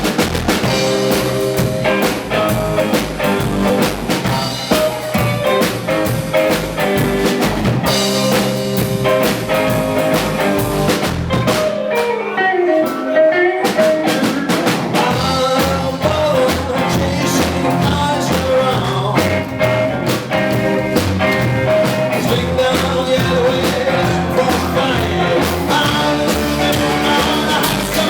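Live rock and roll band playing with drum kit. About twelve seconds in, the bass and drums drop out for a short break before coming back in.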